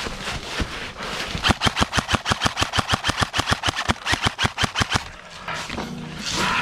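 Airsoft gun firing one long full-auto burst, about eight shots a second, starting a little over a second in and lasting about three and a half seconds.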